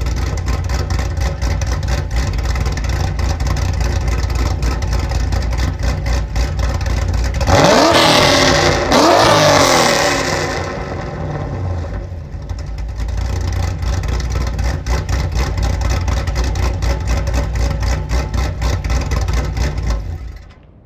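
Chevrolet Camaro SS 6.2-litre V8 with an aftermarket camshaft and Corsa Sport exhaust, heard at the tailpipes: idling with a choppy lope typical of the cam, revved twice about eight seconds in, then settling back to idle and switched off near the end.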